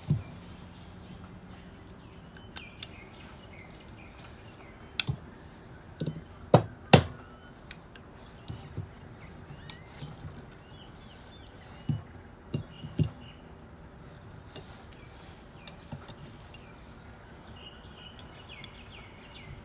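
Metal hand tools and small parts of a Solex 34 PICT-3 carburettor clicking and clinking as it is taken apart by hand, with about a dozen sharp knocks spread out and the loudest pair about six and seven seconds in. Birds chirp faintly in the background.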